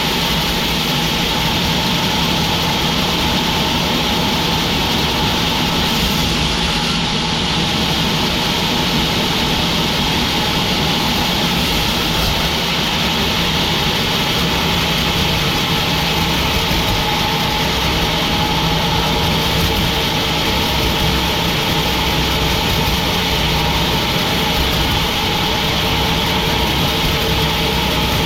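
Sawmill machinery running steadily: a constant engine-like hum with a few held tones and no breaks or sudden changes.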